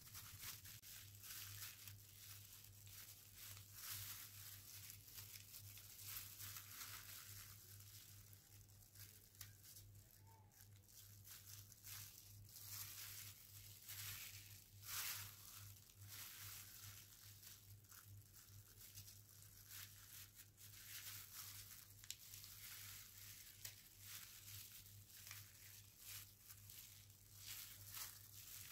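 Faint, continual crinkling and rustling of clear plastic disposable gloves on the hands, with the crisp rustle of origami paper being creased and folded, over a low steady hum.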